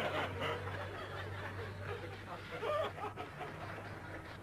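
People chuckling and laughing briefly, twice, over a steady low hum.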